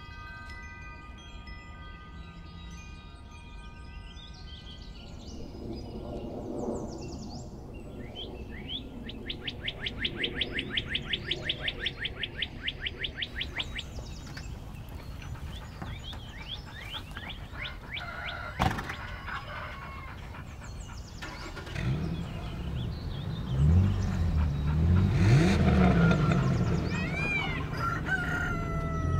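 Birds singing, opening with several sustained chime-like tones and a fast trill of about nine notes a second. A single sharp knock, like a car door shutting, comes a little past halfway. From about three-quarters of the way in, a car engine runs with its pitch rising and falling.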